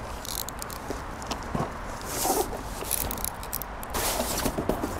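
A cardboard box being cut open and handled: a string of short scratches, rustles and clicks as the packing is slit and the box is shifted.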